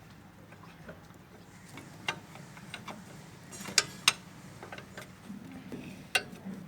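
A few sharp clicks and taps at irregular intervals, louder around the middle, over a faint low steady hum.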